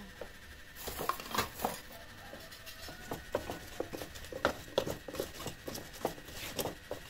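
Irregular light clicks and taps, a few a second, loudest around the middle of the stretch.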